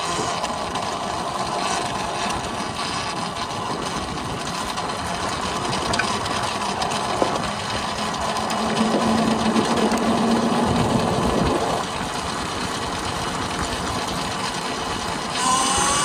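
Volcon Grunt electric off-road motorcycle riding with a steady rushing noise and a faint motor whine; about fifteen seconds in the level steps up and a whine rises in pitch as the bike accelerates.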